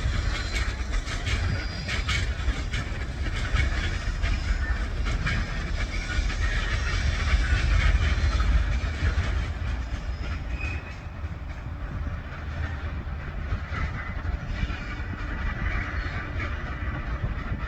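A train running past on the line: a steady low rumble with a rapid run of wheel clicks, loudest about eight seconds in and then easing off.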